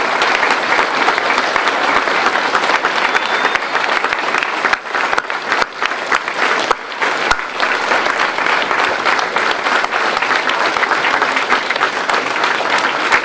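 Crowd applauding steadily, easing for a moment about five seconds in and then picking up again.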